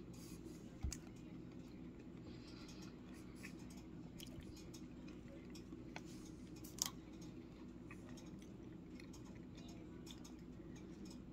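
Faint small clicks of a metal fork against a plastic frozen-meal tray over a steady low room hum, with one sharper click about seven seconds in.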